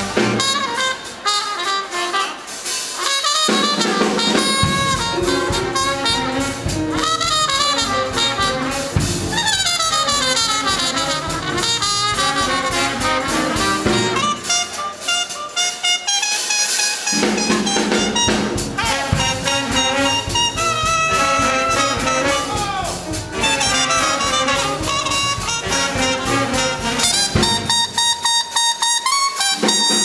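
Big band swing played live, led by a trio of muted trumpets over the band's drums and bass. Three times the low end drops out for a few seconds, leaving the trumpets playing alone.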